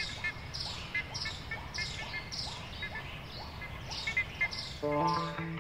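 A bird calling over and over, short high chirps that fall in pitch, a little under two a second, over a steady low rumble of outdoor noise. Guitar music comes in near the end.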